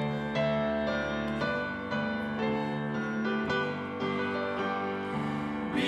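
Grand piano playing a slow introduction of sustained chords, a new chord or note struck about every half second to a second.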